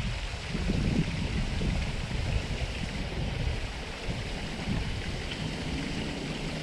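Wind noise on the camera microphone: an uneven low rumble that swells and fades, over a steady faint outdoor hiss.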